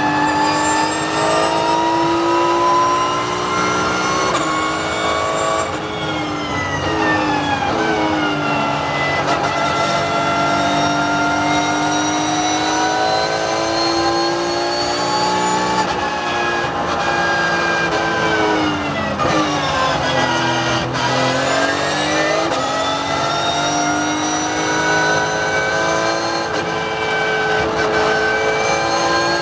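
Porsche 911 GT3 Cup race car's flat-six engine at racing speed, heard from inside the cockpit. Its pitch climbs under full throttle and drops as the car brakes and downshifts for corners, most deeply about six seconds in and again, in a quick dip and climb, about nineteen seconds in.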